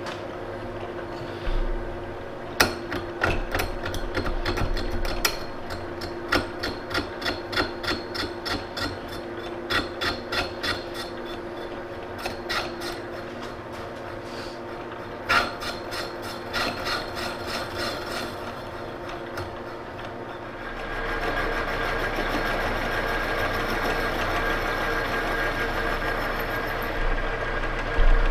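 Victor lathe turning a shaft built up with bronze-nickel spray weld while the tool cleans up its end. The tool ticks against the rough weld about twice a second. About twenty seconds in, this gives way to a steadier scraping cut with a thin high ring, and there is a loud knock near the end.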